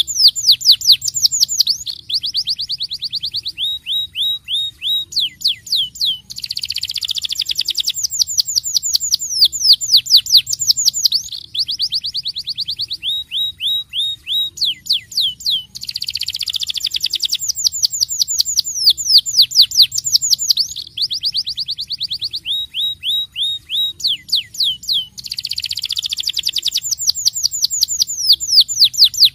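Domestic canary singing a fast, continuous song of rolls and trills: rapid runs of falling whistled notes alternate with buzzy passages and short rattles. The same sequence of phrases comes round about every nine seconds.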